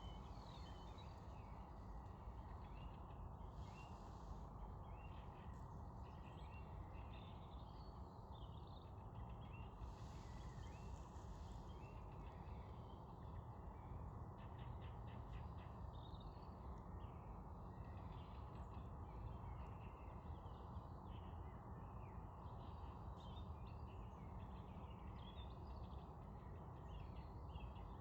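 Several small birds chirping and calling over a steady low rumble, with a quick rattling call about halfway through.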